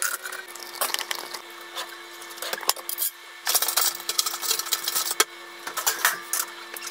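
Kitchen handling noises: irregular clicks, knocks and rustling, with one sharper knock about five seconds in, over a steady hum.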